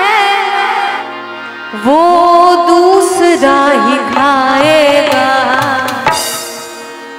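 Female voice singing a bhajan live, a drawn-out, ornamented vocal phrase over sustained harmonium. The voice dips about a second in, comes back strongly, and fades near the end.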